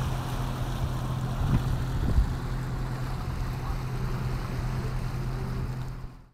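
Catamaran motoring with its engine running steadily, along with the rush of water along the hulls and wake. The sound fades out near the end.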